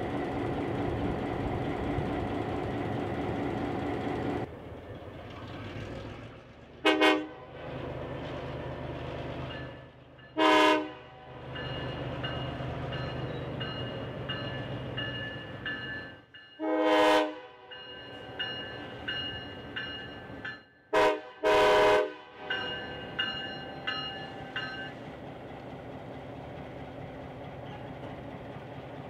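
EMD SW1200 switcher's 12-cylinder two-stroke diesel running, loud at first and then more distant. Its multi-chime air horn sounds five blasts spread over about fifteen seconds, ending with a short one and a long one, the warning pattern for a road grade crossing.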